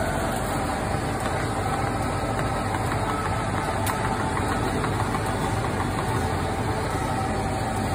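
Steady mechanical hum of frozen-drink and refrigeration machines at a convenience-store drink counter, with a couple of steady tones over a low drone.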